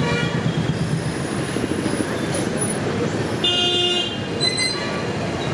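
Busy street traffic with cars and scooters passing, and short car horn toots near the start and again about three and a half seconds in.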